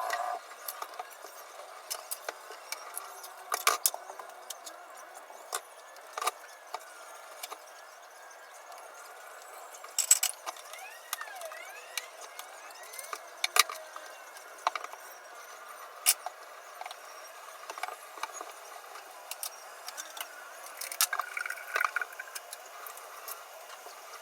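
Dishes and cutlery clinking and knocking together at irregular intervals as they are handled, with a few louder clatters about ten seconds in and again near the end.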